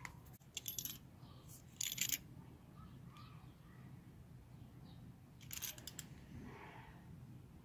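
Three short bursts of light metallic clinking and rattling, about half a second in, around two seconds in and near six seconds in, from a window-screen spline roller tool's metal wheel and fork being handled.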